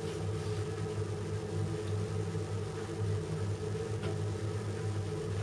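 Steady low hum of a running appliance motor, with a faint click about four seconds in as a serving spoon touches the plate.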